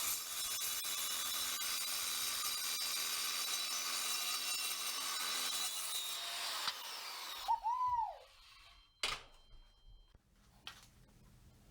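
Evolution S185 7-1/4" metal-cutting circular saw with its carbide-tipped blade cutting mild steel: a steady, high-pitched sawing noise that stops about seven seconds in. A short ringing tone follows, then a sharp click about nine seconds in.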